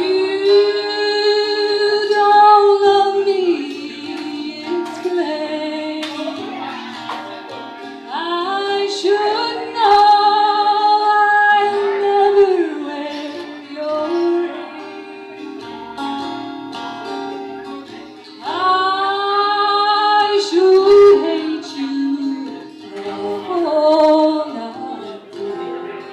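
A woman singing long held notes with vibrato over acoustic guitar, in a live acoustic performance.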